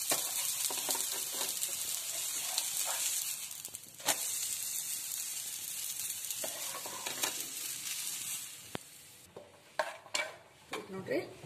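Oil sizzling under a gram-flour tomato omelette on a hot iron tawa, with a metal spatula scraping against the pan as the omelette is lifted. The sizzle fades away about eight or nine seconds in, leaving a few clicks.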